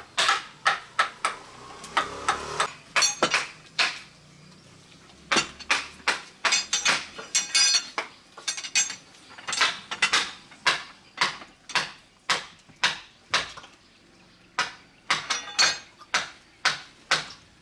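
Hammer striking a steel chisel to carve a block of wood held in a bench vise: a run of sharp blows about two a second, some with a brief metallic ring, pausing briefly twice.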